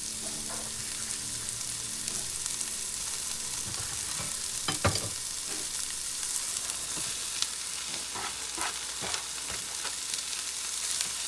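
Spinach sizzling in hot oil with cumin seeds in a pan on medium heat: a steady frying hiss with scattered small pops and clicks, and one louder knock about five seconds in.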